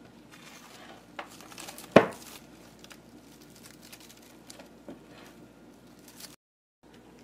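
Plastic cling wrap crinkling as it is peeled back off a bowl of microwave-steamed potatoes, with one sharp snap about two seconds in.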